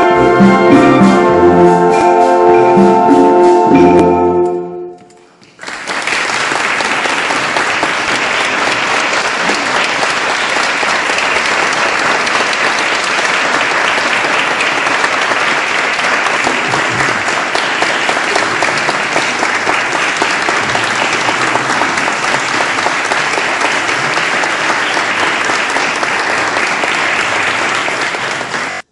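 An instrumental concert piece ends on sustained chords about four seconds in, fading out. The audience then applauds steadily for over twenty seconds until the sound cuts off abruptly.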